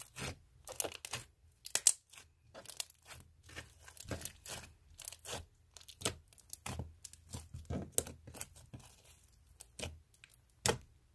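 Slime being worked by hand: an irregular run of crackling, popping bursts as it is squeezed and stretched.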